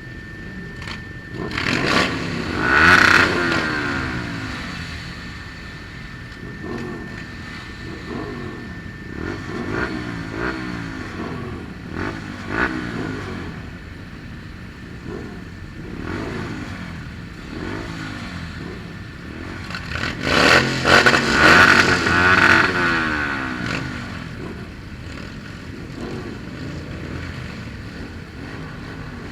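125cc motorcycle engine revving up and down over and over, with two loud hard revs, one a couple of seconds in and another about twenty seconds in.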